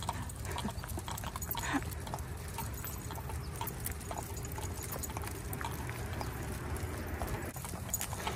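Paws and claws of a large pack of leashed dogs pattering and clicking on asphalt as they walk, a quick irregular stream of small clicks over a steady low rumble.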